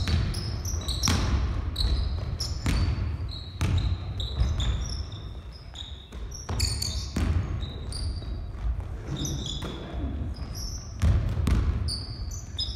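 Basketball game on a wooden gym floor: the ball thumping repeatedly as it is dribbled and passed, with short high squeaks of sneakers on the boards scattered throughout.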